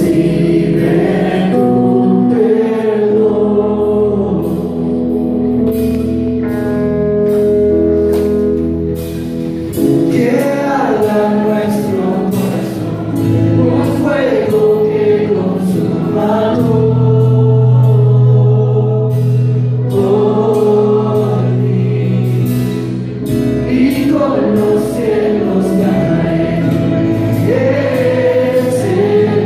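Worship team singing a Christian worship song as a group over a band, with sustained bass notes and a steady beat.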